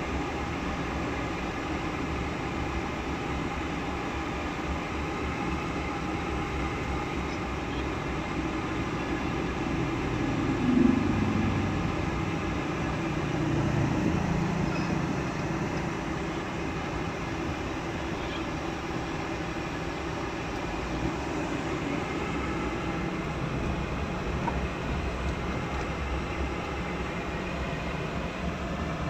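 A vehicle running steadily, getting louder for a moment about a third of the way in and again soon after.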